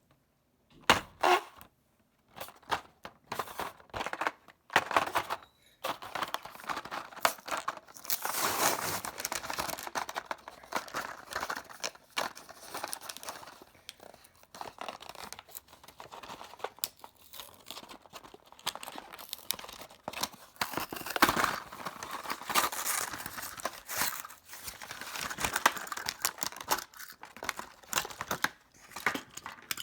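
Toy packaging being torn and crinkled open by hand: irregular tearing, rustling and crumpling.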